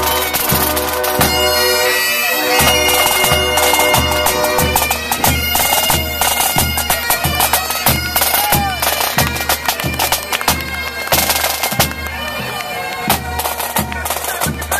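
A pipe band playing: several bagpipes sounding a tune over their steady drones, with a bass drum keeping an even beat and snare drums rattling along.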